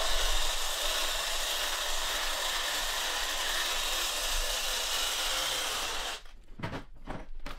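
Cordless Ryobi reciprocating saw running steadily as its blade cuts through the wet, densely matted roots and soil of a bonsai root ball. It stops about six seconds in, leaving a few short light knocks.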